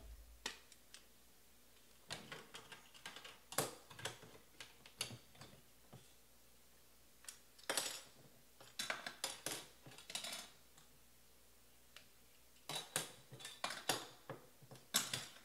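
Hard plastic clicking and clattering as card holders and acrylic display stands are picked up, set down and handled on a desk, in three bursts of quick taps separated by pauses.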